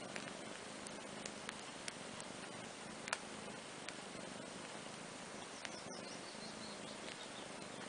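A cat licking and grooming a kitten's fur: soft scattered clicks over a steady faint hiss, one click louder about three seconds in.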